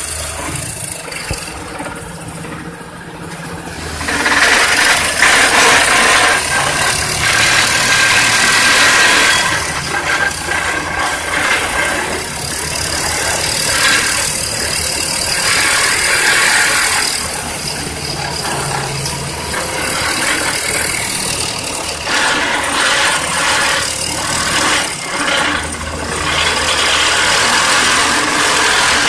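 Excavator-mounted hydraulic vibro hammer vibrating a steel pile into the ground: a loud, dense mechanical rattle over the excavator's diesel engine, growing louder about four seconds in.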